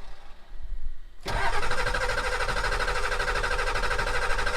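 Ford 7.3L Power Stroke V8 turbo diesel cold-starting after its glow plugs have cycled. It is quiet for about a second, catches suddenly, and settles into a steady idle.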